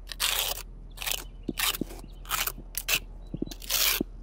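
Notched trowel scraping wet thin-set mortar across a concrete surface, combing it into ridges in a series of short strokes, a little under two a second.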